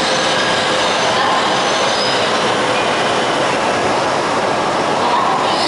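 E5-series Shinkansen train moving along the platform: a loud, steady rushing noise, with a few faint high whining tones above it.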